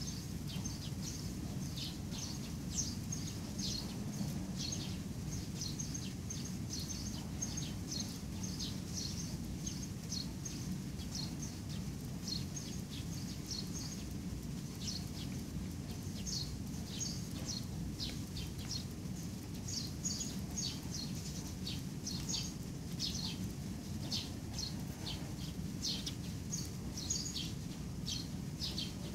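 Small birds chirping, many short high chirps a second, over a steady low rumble of background noise.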